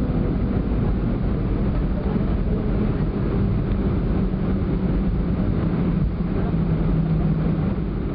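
Steady engine hum and rumble heard inside an Airbus A320 cabin as the jet rolls along the runway after landing.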